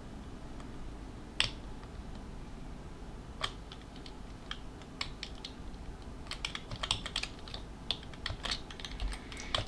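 Computer keyboard being typed on: a few single key presses spaced a second or two apart, then a run of quick typing from about six seconds in.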